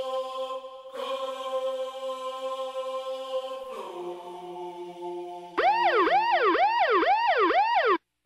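Background music: a sustained choir-like chord that drops to a lower chord about four seconds in. About five and a half seconds in, a louder warbling tone starts, swooping up and down two or three times a second like a siren, and then cuts off abruptly near the end.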